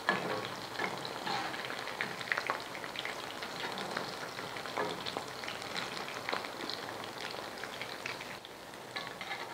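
Battered vegetable pakoras deep-frying in hot oil in a karahi, sizzling steadily with many small crackles and pops, with a louder surge of sizzle right at the start.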